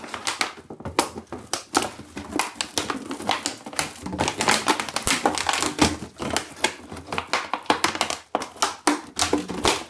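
An empty 2-litre plastic bottle crackling, crinkling and knocking on a wooden floor as a Shiba Inu bites it and pushes it about. It makes a rapid, irregular run of crinkles and clicks.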